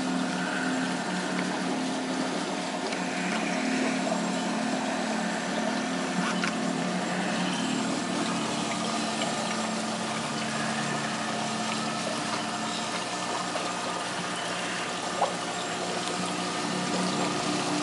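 Saltwater aquarium system running: a pump hums steadily over the constant sound of water trickling and splashing through the plumbing. A brief click about fifteen seconds in.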